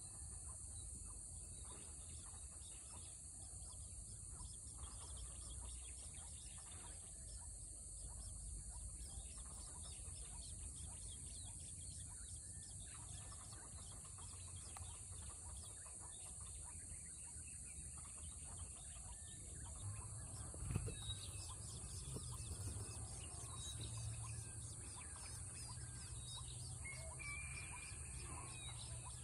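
Faint bird chirps over a steady high-pitched hiss, with a single knock about two-thirds of the way through.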